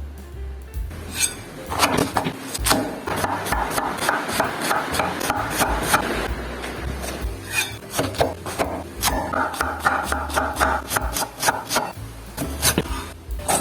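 Vegetables being cut or shredded for coleslaw: an irregular run of sharp knocks and scraping strokes, over background music.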